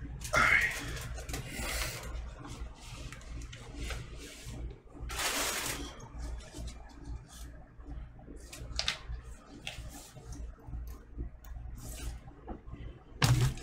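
A vinyl record being slid out of its cardboard album jacket and paper inner sleeve and handled, heard as several rustling scrapes and a few light knocks over a low steady hum. A short, loud low-pitched vocal sound comes right at the end.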